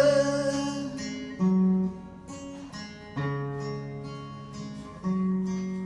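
Acoustic guitar strumming chords, a new chord struck about every two seconds and left to ring. A man's held sung note fades out in the first second.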